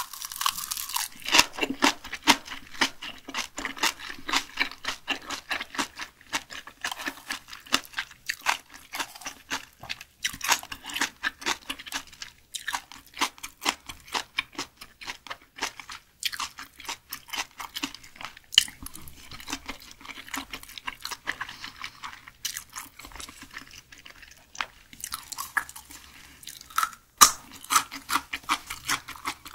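A bite into a seaweed-wrapped roll of raw Spanish mackerel sashimi, then steady close-miked chewing, a dense run of small mouth clicks with a few short pauses.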